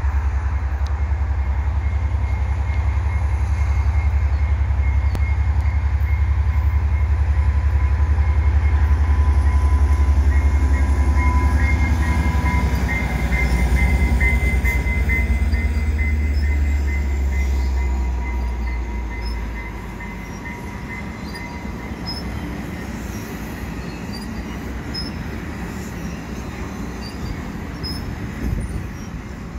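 EMD F59PHI diesel locomotive accelerating a commuter train past: a loud, pulsing low engine rumble with a steady high whine over it. About 18 seconds in the engine sound fades, and the bi-level passenger coaches roll by with quieter wheel-on-rail noise.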